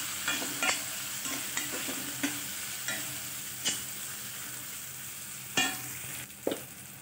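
A steel spatula stirring and scraping against a stainless steel kadhai, with repeated clinks, while onion-tomato masala fries and sizzles in oil. Two louder clanks come near the end.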